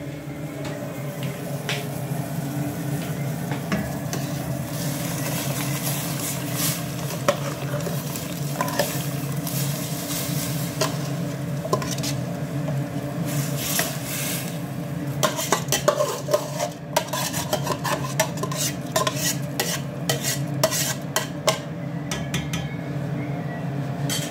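A metal spoon scrapes and clinks against a stainless steel bowl and pot as soaked rice is tipped into a pot of hot chicken broth. The clinks come thickest in the second half, over a steady hum and hiss from the stove.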